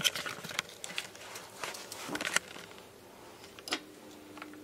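Scattered light taps, clicks and rustles of handling, with a faint steady hum coming in near the end.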